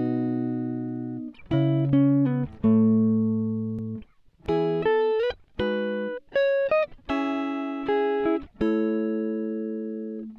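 Background music: a plucked guitar playing a slow, gentle tune of struck chords and short runs, each ringing and fading before the next.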